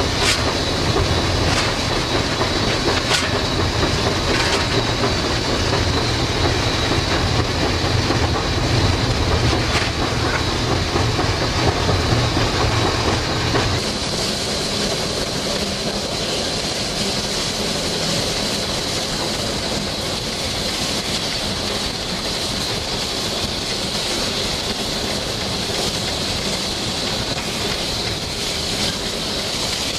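NSW 38 class steam locomotive and its train running along the line: steady rail noise and clickety-clack over the rail joints, with steam hiss. About halfway through, a deep rumble stops suddenly and the sound becomes a little quieter.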